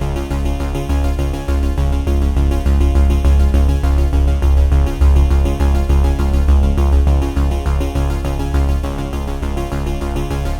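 Background music: an upbeat electronic tune with a steady beat and strong bass.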